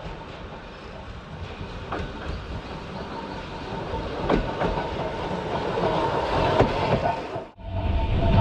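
Narrow-gauge (762 mm) Hokusei Line electric train running, its wheels clicking over rail joints. The sound grows steadily louder, and a higher tone joins in over the last few seconds.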